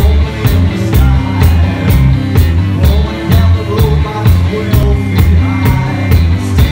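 A live gothic country band playing: a strummed acoustic guitar and a drum kit keep a steady beat of about two hits a second over a heavy low end, with a man singing.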